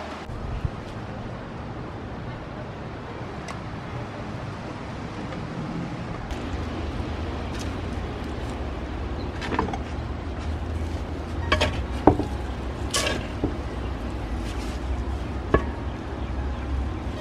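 Gloved hands and a hand trowel digging through potting soil in a plastic planter, with scattered scrapes and knocks, the sharpest about twelve seconds in. A steady low rumble runs underneath from about six seconds in.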